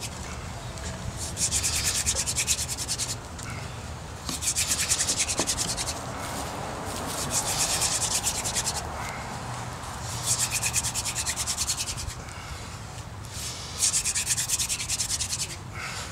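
Wooden hand-drill spindle spun back and forth between the palms in the notch of a split 2x4 fireboard: a dry, rasping grind of wood on wood, friction drilling to build an ember. It comes in loud spells of a second or two, with quieter stretches between them.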